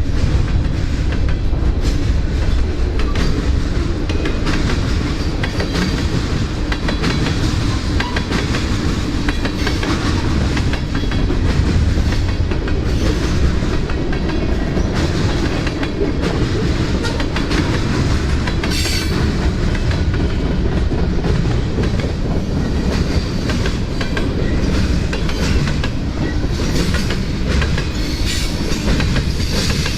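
CSX freight train cars rolling steadily past, their wheels clicking over the rail joints. A brief high-pitched squeal comes about two-thirds of the way through.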